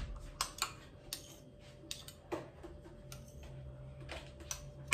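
Two metal spoons clicking and scraping against each other: about a dozen light, irregular taps as ice cream is scraped off one spoon with the other.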